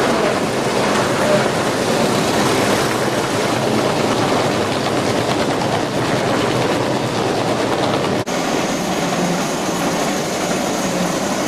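Gauge 1 model train rolling past, its wheels clattering over the track in a steady rumble. The sound cuts out for an instant about eight seconds in, then carries on with another train running and a faint high whine.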